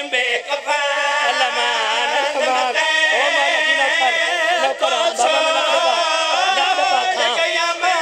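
Men's voices in a drawn-out, wavering sung lament, with several voices overlapping, typical of an elegy chanted at a mourning majlis.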